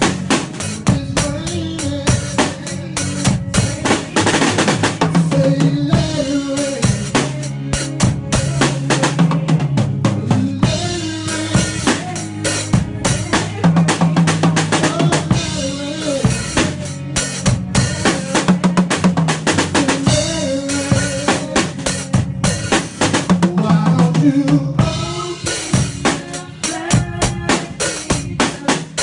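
Live drum kit playing a dense groove of kick, snare and cymbal strokes, over sustained bass and keyboard notes that change pitch every few seconds.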